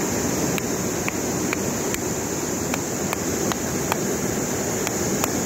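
Steady rushing water of a stream or river, with a constant high-pitched hiss over it and a few faint scattered ticks.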